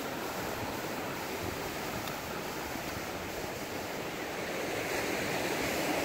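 Sea surf washing over and around low rocks: a steady rush of broken water that swells a little near the end.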